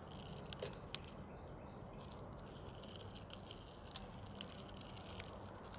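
Nylon trimmer line being wound by hand onto a STIHL string-trimmer head spool: faint, scattered light clicks over a low steady background.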